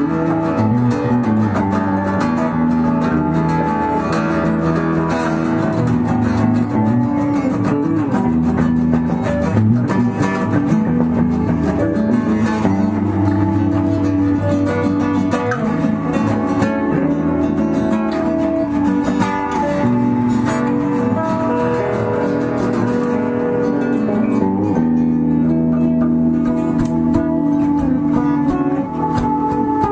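Music led by plucked and strummed guitar, its chords changing every few seconds.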